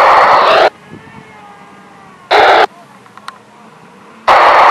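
Two-way radio static: loud hiss that cuts off abruptly under a second in, a short burst of it around two and a half seconds in, and the hiss again near the end. Quieter background in between.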